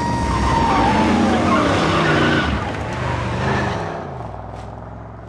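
A Pontiac sports car speeding off with a loud tire squeal that drops in pitch, then its engine fading away as it drives off.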